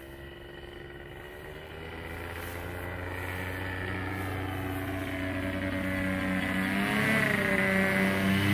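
Paramotor engine and propeller droning in flight, growing steadily louder as the tandem paramotor climbs toward and overhead, its pitch wavering briefly near the end.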